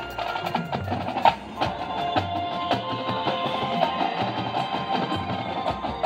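High school marching band playing: held chords over a dense run of drum and percussion strikes, with one loud hit about a second in.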